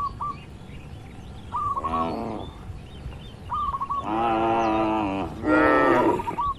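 Cattle mooing three times: a short moo, then a long one, then the loudest. A bird calls between them with short, repeated high notes.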